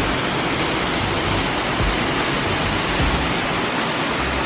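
Mackenzie Falls waterfall rushing steadily, a loud, even noise of falling water with occasional brief low bumps on the microphone.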